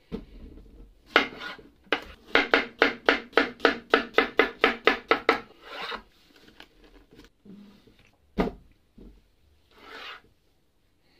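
Chef's knife slicing a zucchini into rounds on a bamboo cutting board: a quick, even run of about fourteen knocks, roughly four a second, with a few single knocks around it. Near the end comes a softer cut through a tomato.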